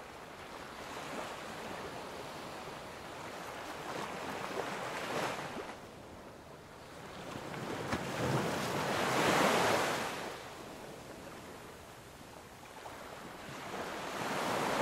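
Sea waves washing in, the rushing water swelling and fading every few seconds, loudest about nine seconds in.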